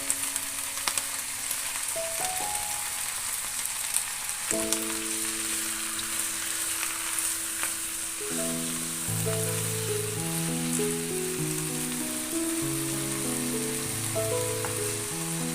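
Baby kailan stir-fry sizzling steadily in a pan, with a few light clicks and taps in the first few seconds. Background music with held melodic notes comes in about four seconds in and grows fuller about halfway through.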